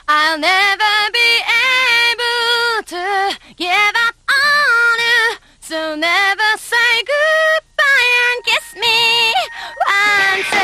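A solo female voice singing unaccompanied in short phrases broken by brief pauses. The full band, with bass and drums, comes in at the very end.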